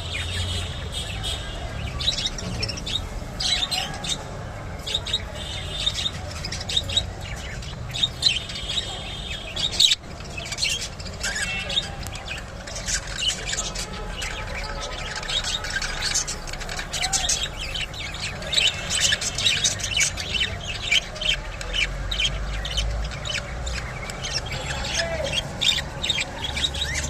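A pair of budgerigars chattering, a steady run of short high chirps and squawks that grows busier about halfway through.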